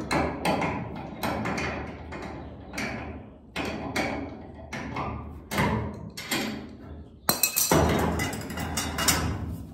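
Repeated metallic clicks and knocks, a few a second, from a clamp-type hinge-pin press being worked tight on a VW Beetle door hinge to force out a rust-seized hinge pin. About seven seconds in, the sound turns into a denser, louder run of metal noise as the press's long bar is levered.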